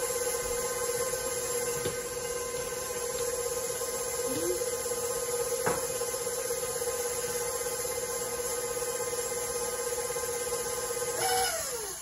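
Electric stand mixer motor running steadily with a whine while it beats cheesecake batter. Near the end it is switched off, and the whine falls in pitch as the motor spins down and fades out.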